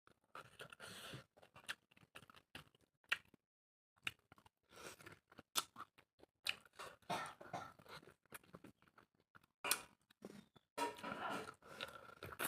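Close-miked chewing of pork meat: a run of short wet clicks, smacks and crunchy bites. The sound cuts out completely for about half a second a little over three seconds in.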